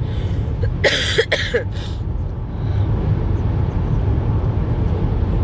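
Steady low road and engine rumble inside a car cruising on a motorway, with a brief vocal sound about a second in.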